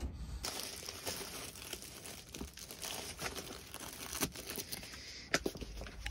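Plastic bread bag crinkling and rustling as slices of bread are pulled out of it, with a couple of sharper handling knocks in the second half.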